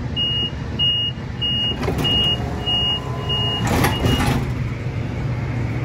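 A high electronic warning beep sounds seven times, about one every 0.6 s, over the steady low rumble of a light rail car. A brief hiss comes as the beeping ends.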